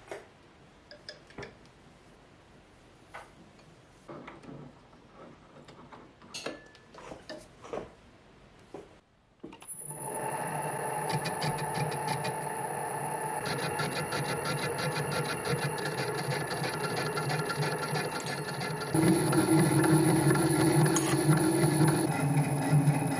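For the first nine seconds, scattered light metal clicks and taps as tooling is handled. Then the homemade metal lathe, with its spindle on tapered roller bearings, runs as a steady machine hum with a high whine above it while facing a large metal disc; it gets louder and deeper about nineteen seconds in.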